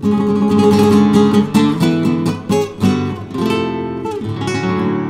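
Acoustic guitar music: quick strummed chords and picked notes, ending on a chord that rings out and fades.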